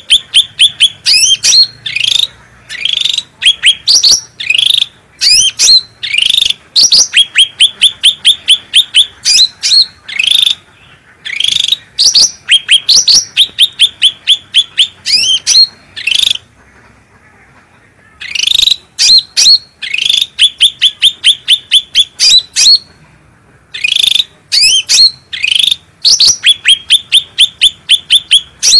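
Cucak rante songbird singing loudly in fast runs of short, sharp chirping notes, several to the second, broken by short pauses.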